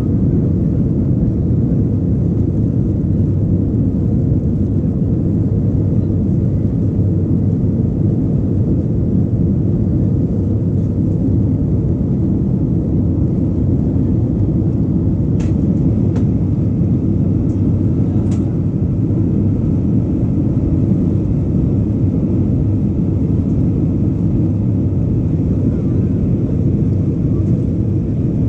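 Steady cabin roar of an Airbus A320 in its climb after take-off: engine and rushing-air noise, deep and even throughout. Two brief clicks about three seconds apart midway.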